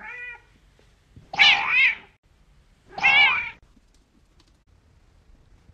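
Cat meowing: the end of one call at the start, then two loud, drawn-out meows about a second and a half apart, the first wavering in pitch.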